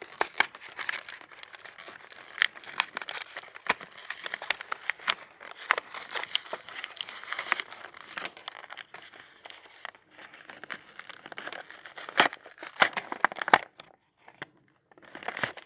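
Plastic packaging of a screen-cleaning kit crinkling and crackling as it is handled and unwrapped, with many sharp snaps. There is a short pause near the end before the crinkling starts again.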